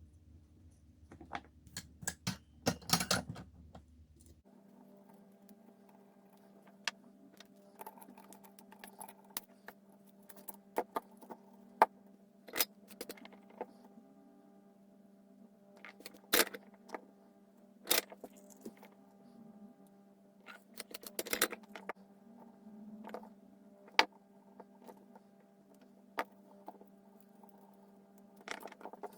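Irregular sharp clicks and light taps of small hard objects being handled, with a busy cluster near the start and another about two-thirds of the way through, over a steady hum that changes abruptly about four seconds in.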